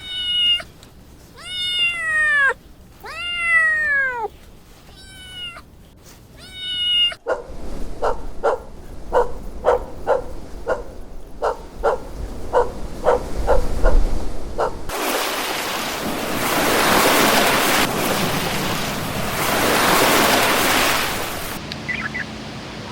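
A cat meowing about five times, each call falling in pitch. This gives way to a run of quick short pulses, about two a second, and then to a steady rushing noise.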